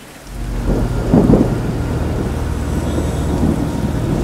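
Rainstorm: steady heavy rain with a low thunder rumble that builds in and swells loudest about a second in.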